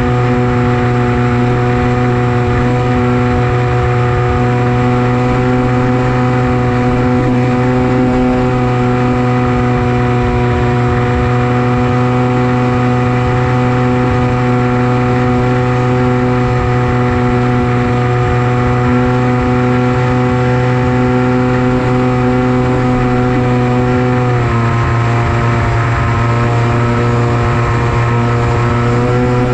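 Electric motor and propeller of a Versa flying wing running at steady throttle: a steady droning buzz whose pitch drops a little about 24 seconds in as the throttle eases, then rises again near the end.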